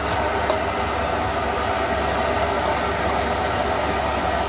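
A metal spatula stirring crab curry in an aluminium wok, with a sharp clink of metal on metal about half a second in and fainter scrapes later, over a steady low rumbling noise.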